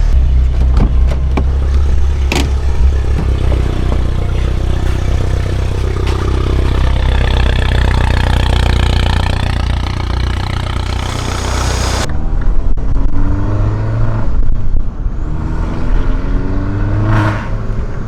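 Mini Cooper S's turbocharged four-cylinder engine and exhaust, fitted with an aftermarket downpipe, pulling hard under acceleration with road and wind noise from the open windows; engine pitch climbs in steps through the gears. Loud.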